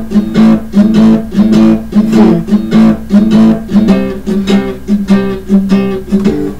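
Acoustic guitar strummed in a steady, even rhythm, chord after chord.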